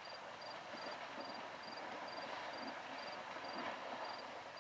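An insect chirping, a short high note repeating about twice a second, over faint outdoor background noise.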